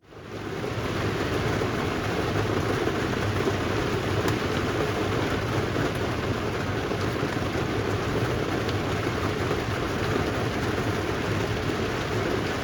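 Heavy rain falling, a steady even hiss that fades in at the start.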